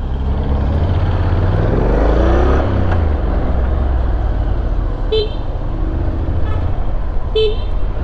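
Motorcycle riding in traffic: steady engine and road rumble, with a rise in engine pitch about two seconds in. Three short vehicle-horn toots come in the second half, the middle one fainter.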